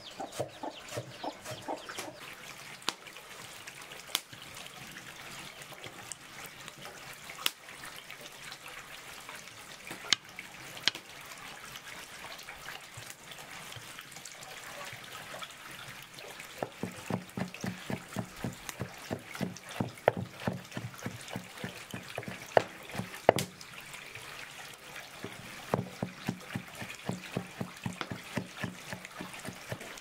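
Chickens clucking at first, then a large kitchen knife chopping fresh herbs on a wooden chopping block: two long runs of rapid, even strokes, with a short pause between them.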